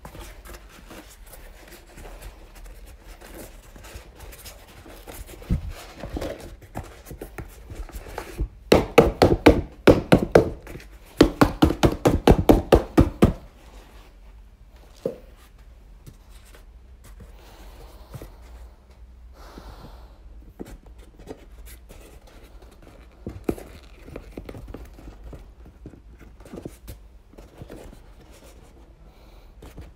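Inflatable plastic Canada goose decoy rustling and crinkling as it is unfolded. Two bursts of rapid, even flapping strokes, about six a second, come near the middle as it is shaken to fill with air, with a few single thunks around them.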